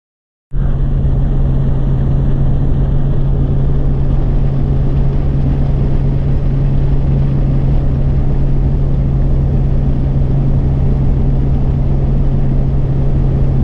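Vehicle on the move at highway speed, heard from inside: a steady low engine drone under constant road and wind noise. It starts abruptly about half a second in and holds unchanged.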